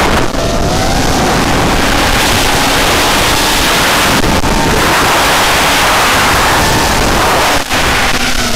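Armattan F1-4B racing quadcopter's motors and propellers whining in flight, their pitch gliding up and down with throttle, under heavy wind rush on the onboard camera's microphone. There is a momentary drop in the sound near the end.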